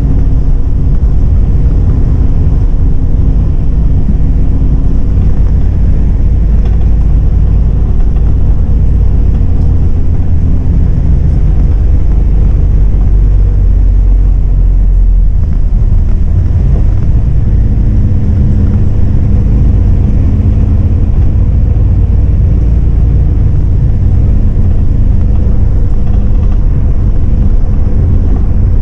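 MAN 18.350 Modulo bus heard from inside the cabin: a steady low diesel engine drone and road rumble as the bus drives along, the engine hum shifting in pitch a little past halfway.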